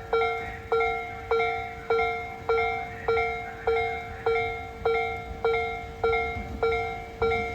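Japanese railway level-crossing warning bell ringing steadily, a clanging ding about every 0.6 seconds, each stroke ringing out before the next. A low rumble runs underneath.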